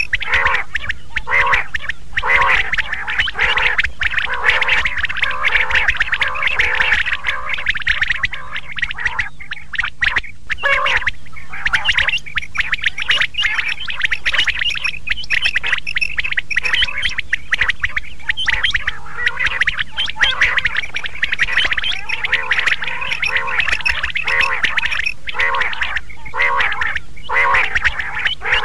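Quail calling: short notes repeated about twice a second in long runs, with a brief lull partway through.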